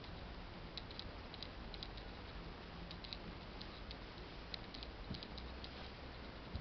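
Quiet room tone: a steady low hiss and hum with faint, irregular light ticks scattered through it.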